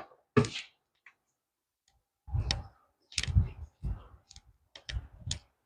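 Irregular clicks and clunks of objects being handled and set down, in about five short bursts with quiet gaps between.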